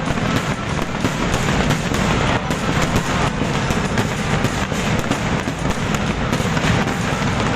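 Fireworks going off in rapid, continuous succession: dense crackling bangs several times a second over a steady low rumble.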